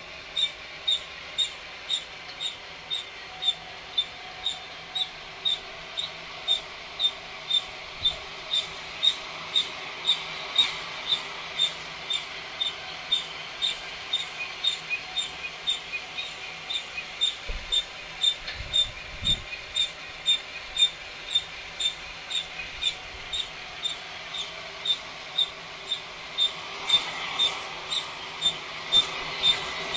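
Hand flour sifter used as a coffee-roasting drum, turned by a cordless right-angle drill, squeaking once per turn in a steady rhythm of about two high squeaks a second as it tumbles roasted coffee beans.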